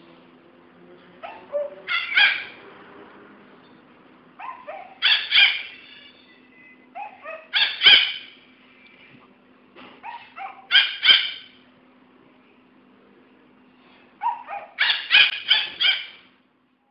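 A young girl imitating monkey calls: repeated groups of hoots that climb into loud, high screeches, about five bursts of calls with short pauses between them.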